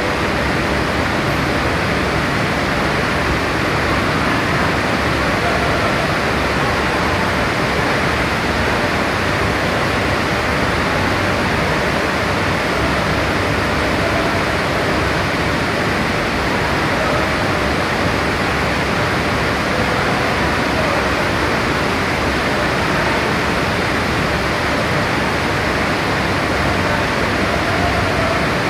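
Steady industrial background noise: an even rushing hiss with no distinct knocks, rhythm or changes.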